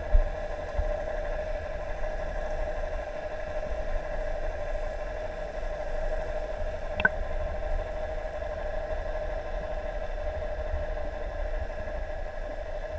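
Heard underwater: a steady mechanical hum, typical of a boat's engine idling, over a low irregular rumble of water moving past the housing. A single sharp click about seven seconds in.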